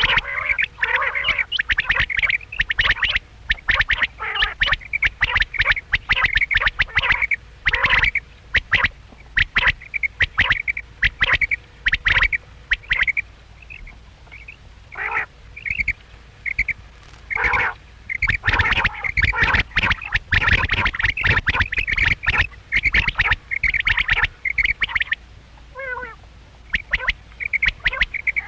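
Quails calling: many short, rapid, chirping calls overlapping one another. The calls thin out briefly about halfway through, then pick up again.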